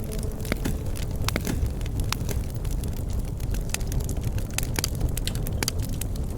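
Campfire burning with a steady low roar and frequent irregular crackles and pops of the burning wood.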